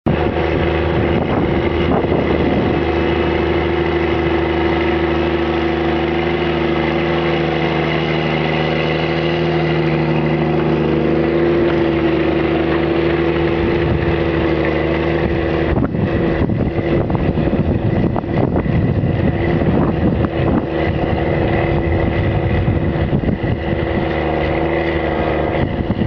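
Tractor diesel engine running steadily under load as it pulls a seven-furrow plough through the soil. From about sixteen seconds in, a rougher, uneven noise joins the engine.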